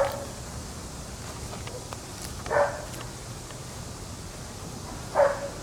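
A dog barking three times, single short barks about two and a half seconds apart, over a steady low hum.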